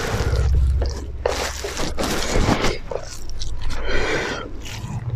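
Close-miked chewing and eating sounds of people eating rice and pork by hand, with fingers scraping and mixing rice on their plates, in irregular short bursts over a steady low hum.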